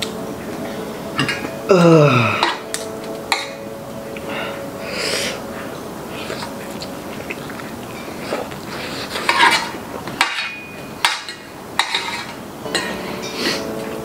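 Fork and spoon clinking and scraping on a ceramic plate while noodles are eaten and slurped. About two seconds in comes a short falling tone, the loudest sound here.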